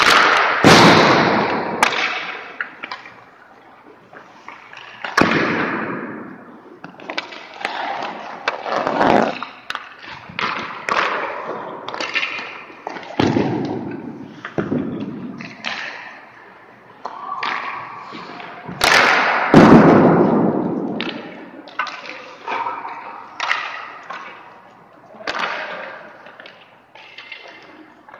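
Ice hockey goalie practice: an irregular run of sharp impacts and scraping noises, about one every second or so, each dying away with a short echo. The loudest comes about two-thirds of the way through.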